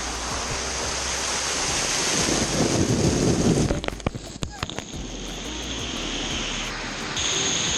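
Rushing, splashing water at a water park, swelling to its loudest between about two and three and a half seconds in and dropping away sharply around four seconds, then running on as a steadier rush.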